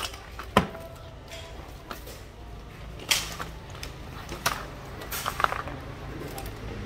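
Handheld Makita grinders being picked up, handled and set down. There are a handful of sharp knocks and clicks, the loudest about half a second in and about three seconds in, and a small cluster near the end.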